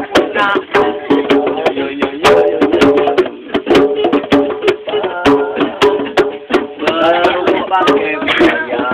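Acoustic guitar strummed in a steady rhythm, with sharp percussive knocks keeping the beat. Voices join in near the end.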